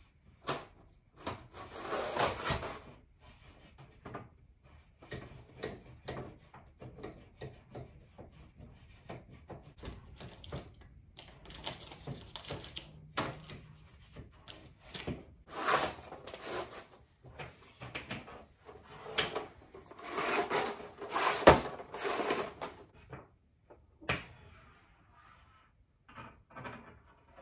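Steel fish tape being fed off its plastic reel down into a wall through a drywall outlet cutout: irregular bursts of scraping and rattling, with one sharp knock about three-quarters of the way through.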